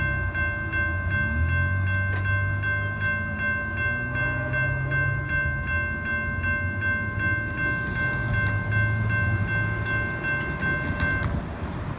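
Passenger train's horn held on one steady chord, which cuts off about eleven seconds in, over the low rumble of the departing train.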